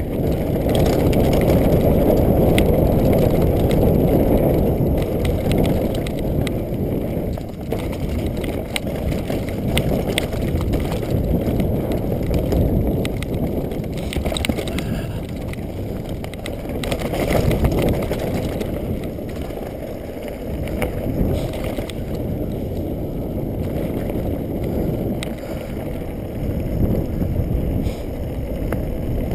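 Mountain bike riding fast down a rough dirt trail: a continuous rumble of tyres and wind on the camera microphone, with frequent rattling clicks from the bike over bumps. It is loudest in the first few seconds.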